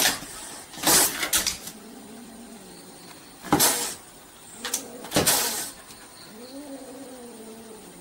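Kitten hissing and spitting at a dog in about six sharp, loud bursts, then giving one drawn-out meow near the end.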